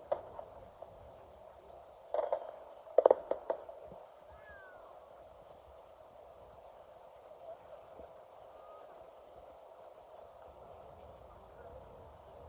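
Fireworks going off: a cluster of sharp cracks about two seconds in and another about three seconds in, over a steady faint background hum.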